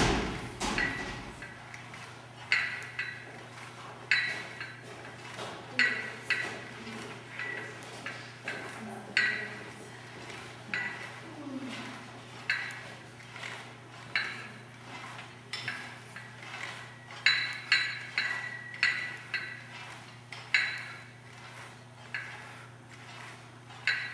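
Cable-row machine weight stack clinking as the plates lift and drop with each twisting pull, a sharp ringing metal clink about every second or two.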